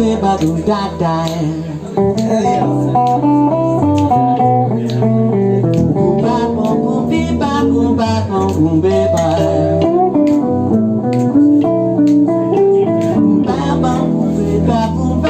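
Live band playing an instrumental passage: electric bass holding low notes under guitar and keys, with a steady drum beat.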